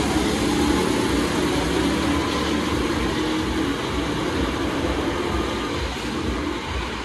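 Go-kart engine running steadily at speed, a continuous engine drone mixed with rushing noise.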